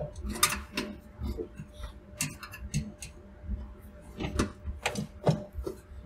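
Irregular metallic clicks and knocks of a hand tool working on the evaporator coil's sheet-metal mounting in a commercial under-counter cooler, loosening it so the coil can be taken down. A faint steady hum runs underneath.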